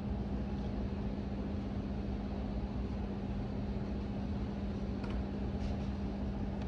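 Steady machine hum with one constant low tone, plus a few faint ticks about five seconds in.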